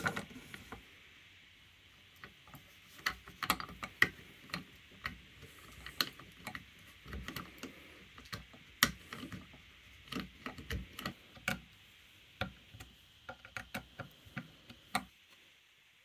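Titanium multitool's small wrench clicking and clinking against steel bolt heads as it is fitted over and turned. The metal clicks come irregularly and stop about a second before the end.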